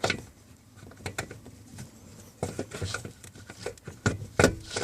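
A hand rummaging behind dashboard wiring, feeling for the turn-signal relay's mounting slot: irregular plastic clicks, taps and rubbing, sparse at first and busier in the second half, with the sharpest knocks near the end.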